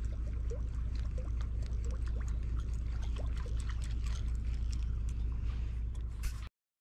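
Water sloshing and trickling, with scattered light clicks over a steady low rumble; the sound cuts off abruptly near the end.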